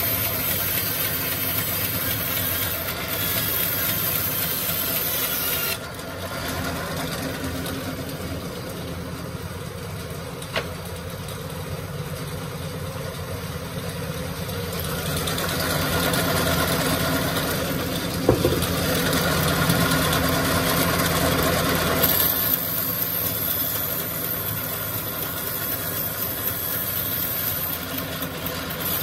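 Band sawmill's motor running steadily, a little quieter for a stretch in the middle, with a couple of short knocks.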